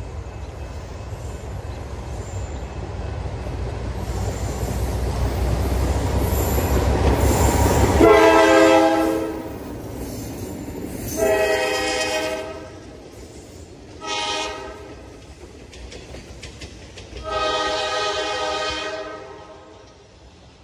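Alco/MLW diesel locomotives rumbling louder as they approach, then a locomotive air horn sounding two long blasts, one short and one long: the standard grade-crossing signal. The horn fades as the train moves away.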